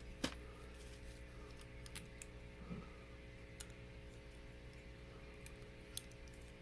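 Sparse small clicks and taps of plastic Lego Hero Factory pieces being handled and fitted together, the sharpest just after the start, over a steady faint hum.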